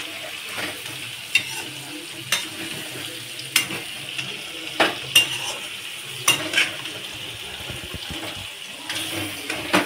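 Chicken pieces frying in hot oil with a steady sizzle, and a metal spoon knocking and scraping against the pan every second or so as the pieces are turned over, loosening them where they are sticking to the bottom.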